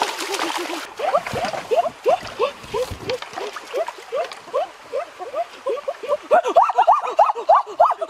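Feet splashing through shallow stream water about the first second, over a steady run of short rising-and-falling calls, three or four a second, that grow louder near the end.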